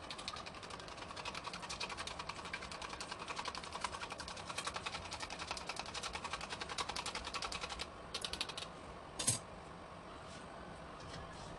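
Fork whisking beaten egg in a small glass bowl: fast, even clicking of metal against glass that stops about eight seconds in, followed by a short flurry of clicks and one sharp knock about a second later.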